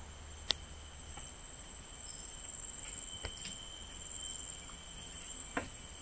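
Steady high-pitched drone of forest insects, with a few sharp clicks, the loudest about half a second in.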